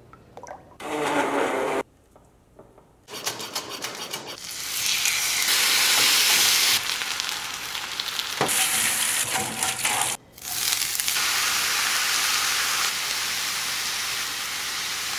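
Marinated beef short ribs sizzling on a hot cast iron grill pan: a steady, loud hiss with a few crackles, starting about three seconds in after a short separate sound and a brief pause, and broken once by a short gap near the end.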